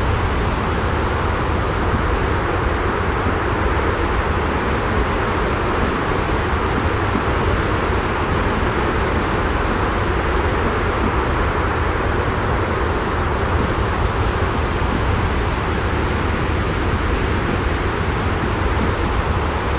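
Steady white-noise ambience: a dense, even hiss with a deep low-end rumble, unchanging throughout with no distinct events.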